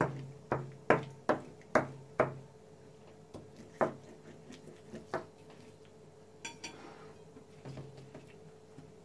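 Metal spoon tapping and knocking against the table through a sheet of yufka while spreading sauce, about six quick taps in the first two seconds, then a few more spaced out.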